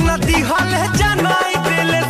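A song playing, with a steady drum beat over a bass line.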